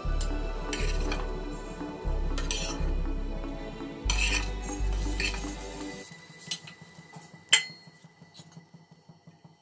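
Metal spatula scraping and clinking against a nonstick frying pan as slices of egg toast are lifted out of sizzling oil, with several sharp strikes. A ringing metal clink about seven and a half seconds in is the loudest sound. Background music with a bass beat runs under it and stops about six seconds in.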